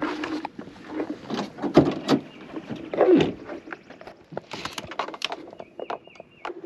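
A run of knocks, clunks and rustling from things being handled and moved about at close range, with a brief high tone about six seconds in.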